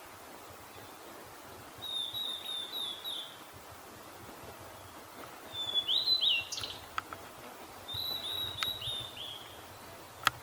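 Blue-and-white flycatcher calling: three short phrases of quick, high, down-slurred whistled notes a few seconds apart, with a few sharp ticks in between, the loudest near the end.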